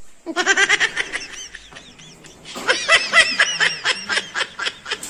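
Rapid, high-pitched snickering laughter, a comic laugh sound effect, in two runs: the second, louder one starts about two and a half seconds in.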